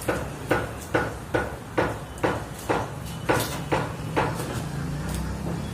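Sharp knocks in a steady rhythm, a little over two a second, ending a little past four seconds in, followed by a low hum.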